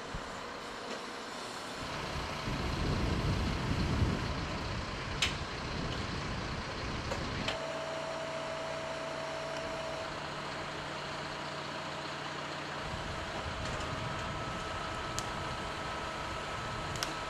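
A fire truck's engine running as it drives the hydraulics of its Bumar Koszalin aerial ladder, raising the rescue basket into the trees. Under the steady hum, a held whine sounds for a few seconds near the middle, a higher one comes in later, and there are a few light clicks.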